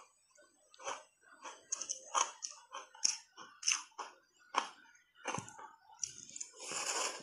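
Ice thickly coated in matcha powder being chewed, a sharp crunch every half to one second. Near the end a big bite into a fresh piece gives a longer, louder crunching.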